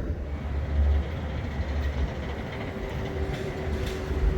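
Skyride gondola running along its haul cable: a steady, low, rumbling ride noise with a faint steady whine above it.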